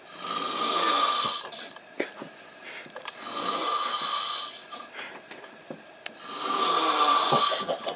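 A person snoring: three long snores about three seconds apart.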